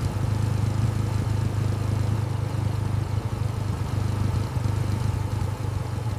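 Royal Enfield Classic 350's single-cylinder engine idling steadily, with an even low pulsing beat and no revving.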